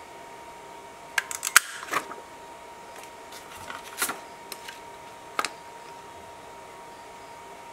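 Handheld plastic craft hole punch clicking as it is handled and pressed to punch holes in thin clear plastic sheet. A quick run of sharp clicks comes about a second in, then single clicks near four and five and a half seconds.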